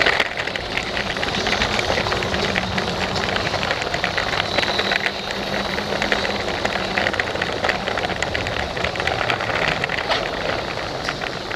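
Lego train running on plastic track, heard from a camera riding on it: the electric train motor gives a steady low hum under a constant run of rapid clicking and rattling from the wheels on the track.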